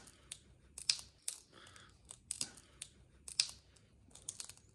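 Flathead screwdriver prying a superglued composite shoe cuff away from a horse's hoof wall, giving faint, irregular clicks and crackles as the glue bond breaks.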